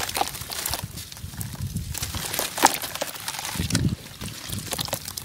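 Soft sand-cement chunks crumbled by hand into a basin of water: gritty crunching with sharp crackles, and sloshing and splashes as pieces drop in, heaviest a little before four seconds in.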